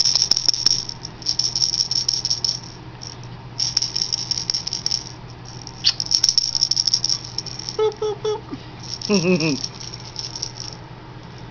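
A baby's plush monkey rattle shaken by hand, rattling in about five short bouts of one to two seconds each, with brief pauses between them.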